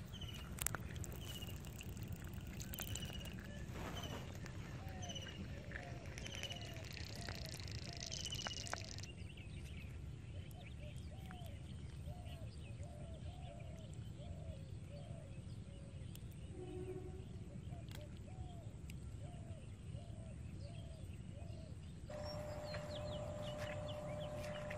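Outdoor ambience with birds calling over a constant low rumble. A quick run of short, high chirps comes first, then a long series of lower repeated calls, a bit more than one a second. Near the end a steady hum comes in.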